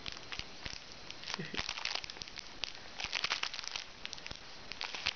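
Plastic toy packaging crinkling and crackling as a cat paws and bites at the toys in it. The sound comes in irregular bursts, busiest in two spells, one near the middle and one around three seconds in.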